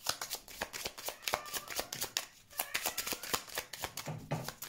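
A deck of Lenormand cards being shuffled by hand, overhand: a rapid, uneven patter of cards slapping and riffling against each other.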